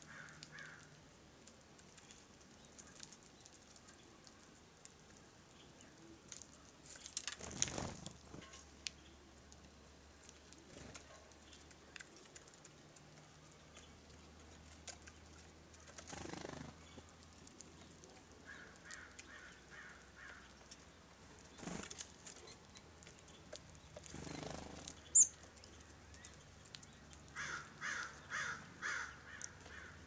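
Birds' wings flutter as they come and go at a feeder. A short run of harsh, evenly repeated calls comes about two-thirds of the way through, and a longer run of about three a second comes near the end, typical of a California scrub-jay.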